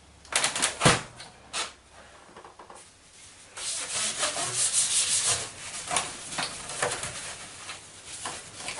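Handling noise from fitting a MIDI interface to a 25-way serial connector. A few sharp plastic clicks come first, then about two seconds of rough rubbing and scraping around the middle, then lighter scraping and clicks.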